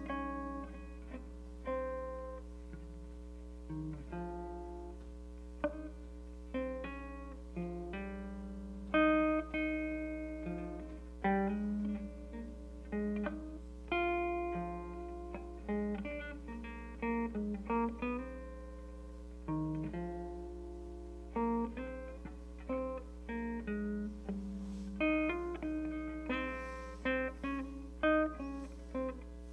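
Gibson hollow-body archtop electric guitar played solo, an instrumental break of melody lines and chords with each plucked note ringing and fading. A steady low hum sits underneath.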